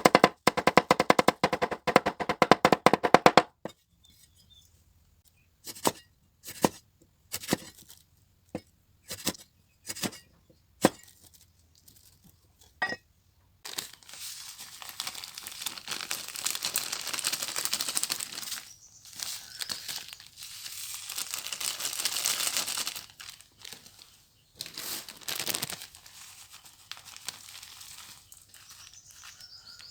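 Knife chopping on a cutting board, fast and rhythmic for the first few seconds, then single chops about once a second. From about halfway through, a long crinkling, rustling noise.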